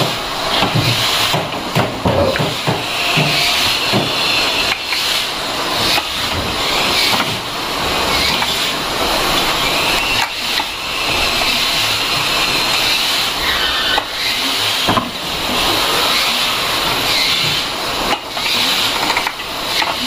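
Factory workshop noise: a steady hiss of running machinery with scattered knocks and clanks of metal parts being worked.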